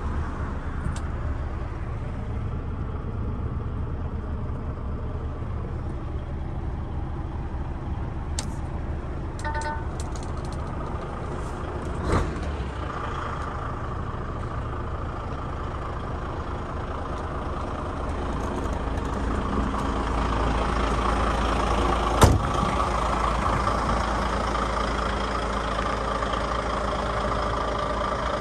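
DAF XF106's PACCAR MX-13 510 hp straight-six diesel idling steadily, with a few light clicks and short beeps near the middle and one sharp knock about three quarters of the way through.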